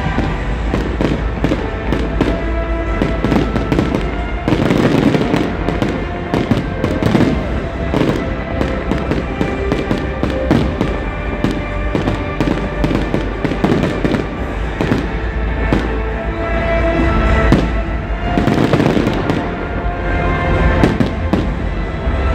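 Fireworks display: a dense, continuous run of sharp bangs and crackling bursts, with music playing underneath.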